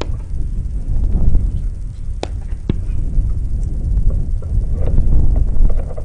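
Low, uneven rumble of wind buffeting an outdoor microphone, swelling and easing, with two sharp clicks a little over two seconds in.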